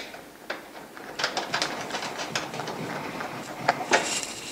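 Scattered light clicks and taps of handling, as Phillips screws are set back into a dehumidifier's metal cover. There are a few sharper taps near the end.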